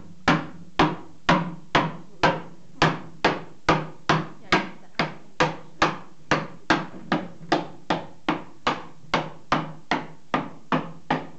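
Cooper's hammer striking an iron hoop driver against the hoop of a wine barrel, a steady run of sharp ringing blows about two a second, knocking the staves down to one height as the barrel is levelled.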